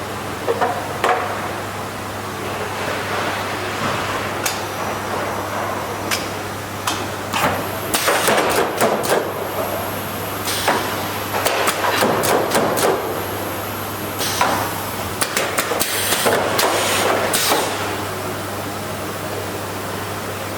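Steady machine hum with a run of irregular sharp knocks and clacks, thickest through the middle, and a faint high hiss while they go on. The sounds come from a Hollinger four-head window-frame welding machine at work or being handled.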